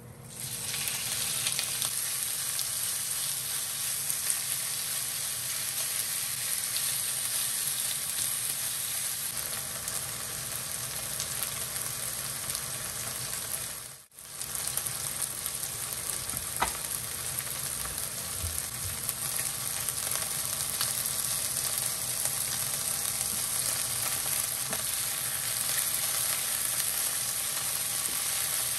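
Bite-sized chicken thigh pieces sizzling steadily in hot oil in a frying pan. The sizzle starts abruptly as the chicken goes into the pan, drops out briefly about halfway through, then carries on.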